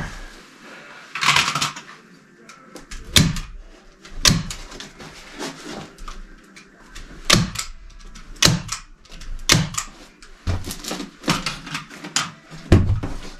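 Irregular sharp knocks and taps, with some rustling in between, as a weighted foam dog-door flap is handled and fitted in its wall opening.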